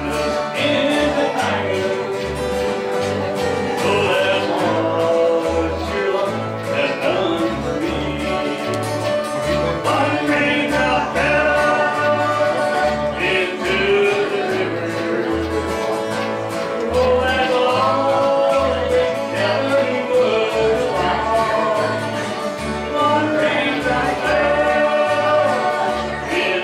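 Live acoustic string band playing a country-bluegrass song: acoustic guitar strumming and upright bass plucking on the beat under a singing voice.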